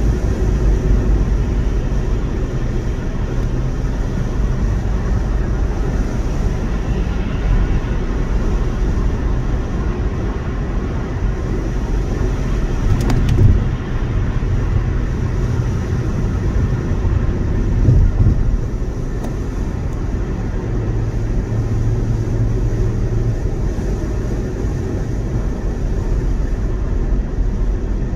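Road noise heard from inside a car's cabin at freeway speed: a steady low rumble of tyres and engine. Midway there is a short louder knock, and a few seconds later a brief louder swell.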